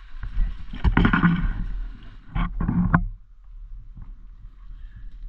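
A person's raised voice, loud calls in several pieces over the first three seconds, over a steady low rumble on the microphone.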